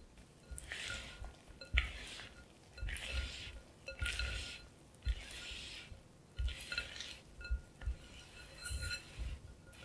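Silicone spatula folding flour and cocoa into thick chocolate muffin batter in a glass bowl: a wet scrape about once a second, with light clinks as the spatula meets the glass.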